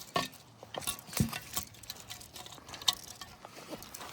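Irregular light clicks and taps, with sharper knocks about a second in and near three seconds.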